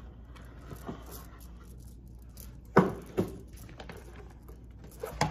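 Game box and pieces being handled and set down on a tabletop: a soft rustle about a second in, then two sharp knocks close together about three seconds in and another near the end.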